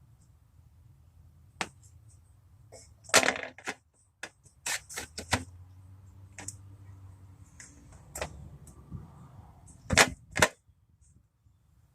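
A dozen or so sharp, irregular clicks and knocks over a faint low hum, the loudest two about ten seconds in.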